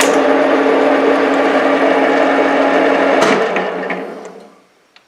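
TV-4 'Shkolnik' benchtop lathe running with a steady hum while a boring cutter takes a pass inside a steel pipe. About three seconds in there is a sharp click, and the lathe winds down and stops.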